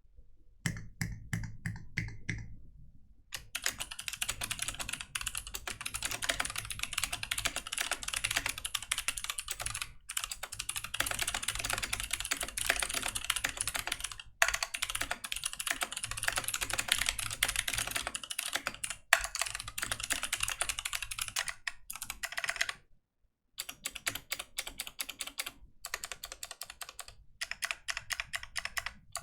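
Typing test on a Fox Orange 80 (Pizza80) all-aluminium mechanical keyboard. A few separate keystrokes come first, then fast continuous typing with a handful of brief pauses.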